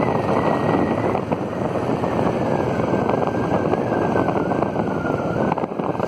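Royal Enfield single-cylinder motorcycle engine running while riding along a road, with wind buffeting a helmet-mounted microphone. A thin high whine drifts slowly lower throughout.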